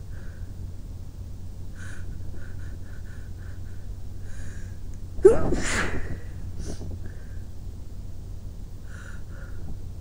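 One loud sneeze about five seconds in, sneezed into a pillow by someone who is sick, with faint short breaths before and after it.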